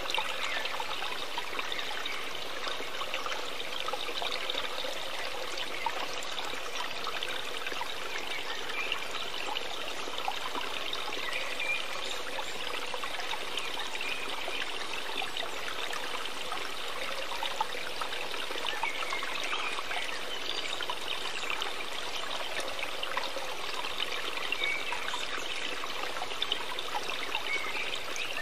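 Steady sound of running water, a stream trickling without a break.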